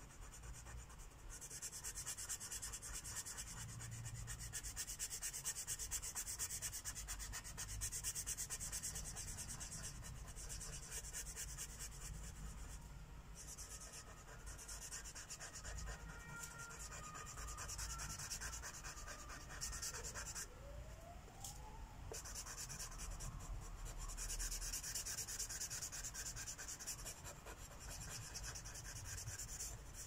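Sharpie permanent marker's felt tip rubbing on paper in quick short strokes while colouring in, a soft scratchy hiss, with a few brief pauses between stretches of strokes.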